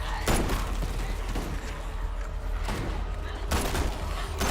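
Gunshots in a TV drama's soundtrack: several single shots fired a second or so apart, each sharp and brief, over a steady low hum.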